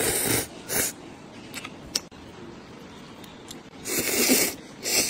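Four short bursts of rustling noise, each under half a second: one at the start, one just before a second in, a longer one about four seconds in and one near the end, with a few faint clicks between.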